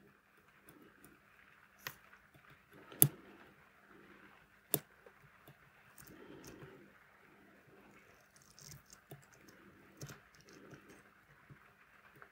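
Faint clicks and taps of steel tweezers against a mechanical watch movement as a tiny click spring is worked into place, with soft handling rustle between them. One sharp click about three seconds in is the loudest, with lighter ones shortly before and after it.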